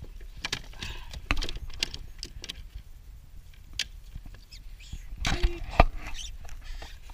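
Scattered knocks and clatter of handling aboard a small paddled boat, with the loudest knocks bunched about five to six seconds in.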